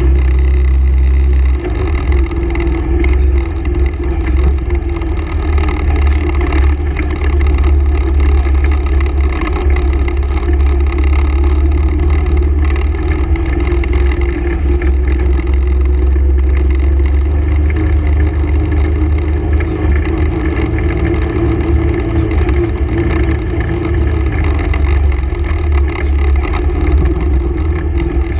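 Honda ATV engine running steadily as the machine rides along a dirt trail, picked up close by a camera mounted on the quad.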